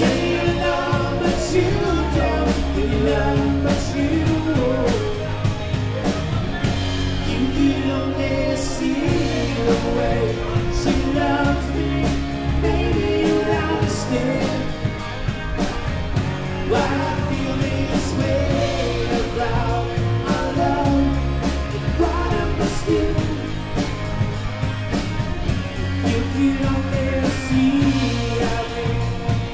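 Live rock band playing: electric guitars and a drum kit keeping a steady beat, with a male lead vocal sung over them.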